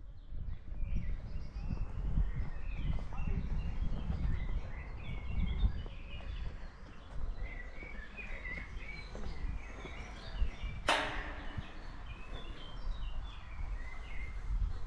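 Small birds chirping and singing in the trees over a steady low rumble. A brief harsh noise cuts through about eleven seconds in.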